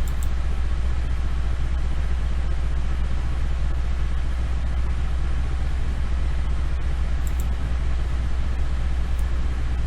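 Steady low hum with a faint even hiss: the background noise of the recording, with a few faint short ticks.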